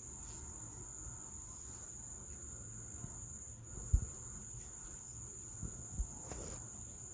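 Faint background with a steady high-pitched tone over a low rumble, broken by a few short low thumps: one sharp one about four seconds in, and two softer ones near six seconds.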